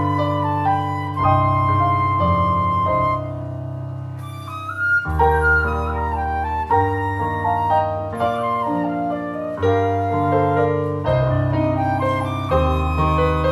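Concert flute playing a slow melody of long held notes, accompanied by an electronic keyboard playing piano chords. There is a short lull in the melody about four seconds in.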